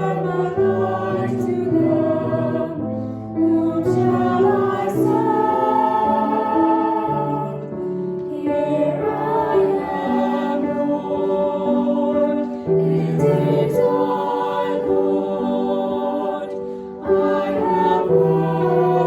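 Choir singing a slow hymn, with long held notes in several voices.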